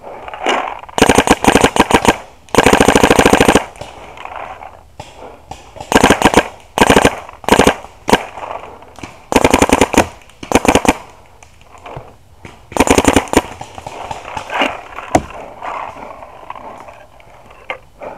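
Proto Rail electropneumatic paintball marker firing rapid strings of shots in several bursts; the longest string lasts about a second. Near the end come only single shots.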